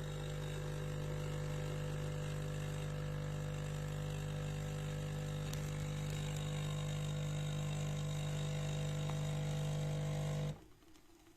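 De'Longhi Dinamica Plus bean-to-cup espresso machine running a steady pump hum while dispensing a cappuccino. It cuts off suddenly near the end as the drink finishes.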